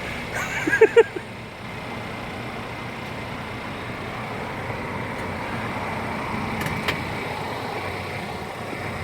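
An SUV running, a steady even noise with no repeating alarm pattern. There are a few short high chirps about a second in and a single sharp click later on.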